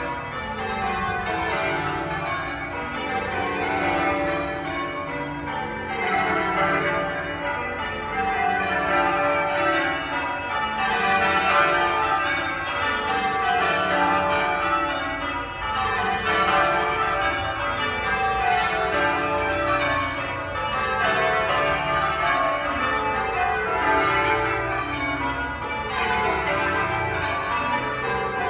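A ring of twelve church bells being change rung, struck one after another in continuous rows, each row stepping down in pitch from the highest bell to the lowest.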